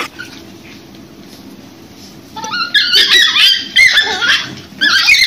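Dogs scuffling: after a quiet start, from about halfway in comes a loud run of high-pitched yelps and whines, sliding up and down in pitch, with a brief pause near the end.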